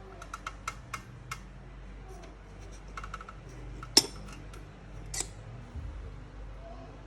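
Light metallic clicks and clinks of hardware being handled while working inside a Mac Pro 2019: a quick run of small ticks in the first second and a half, a short cluster about three seconds in, a single sharp clack about four seconds in, the loudest, and another about a second later.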